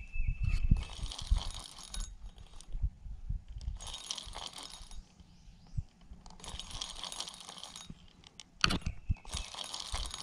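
Closed-face spincast fishing reel being cranked in spells of one to two seconds, its gears whirring and rattling as line is wound in against a hooked turtle, with a few handling knocks.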